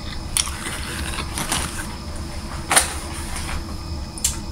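Someone chewing a mouthful of sub sandwich, with several sharp, wet mouth smacks, the loudest a little under three seconds in, over a steady low background hum.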